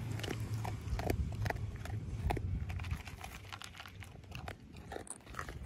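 A dog crunching and chewing dry kibble from a plastic bowl, in irregular crisp crunches. A low rumble underneath fades out about three seconds in.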